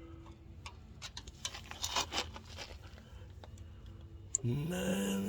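Light metal clicks and taps of brake parts being handled as the brake pad retaining clip is worked out. Near the end comes a louder steady pitched sound lasting about a second.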